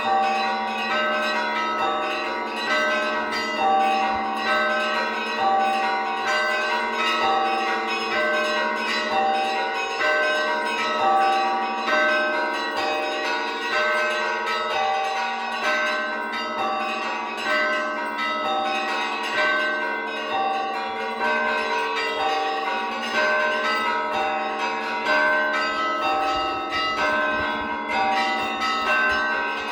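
Russian Orthodox church bells in festal ringing: small bells struck in a rapid repeating pattern over the steady hum of a larger bell, with a stronger accent about once a second.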